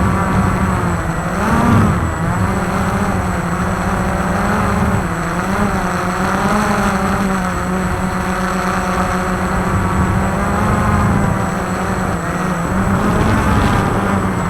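Walkera QR X350 quadcopter's motors and propellers whirring in flight, the pitch wavering up and down with throttle changes, with a brief surge about two seconds in.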